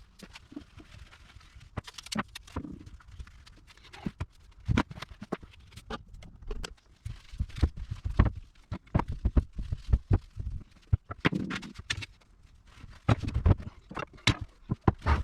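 Irregular clicks and knocks of newly delivered VW Bus parts and their packaging being handled, coming in uneven clusters with short pauses between them.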